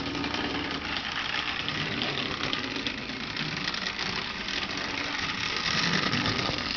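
1930s Marx Commodore Vanderbilt electric toy locomotive running steadily on its track, its motor whirring and its wheels rattling on the rails. The train has not been run in years and is just starting to run freely again.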